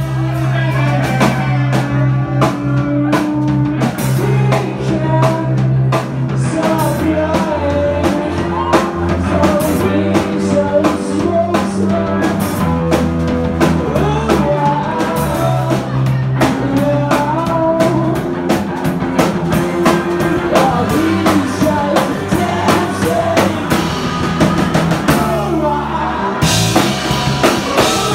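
Live rock band playing: a drum kit and electric guitars, with singing. Cymbals wash in loudly near the end.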